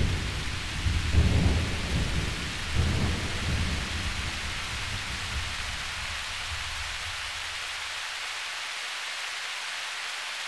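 Thunderstorm: two rolls of thunder, about a second and three seconds in, over steady rain. The low rumble dies away near the end, leaving only the hiss of the rain.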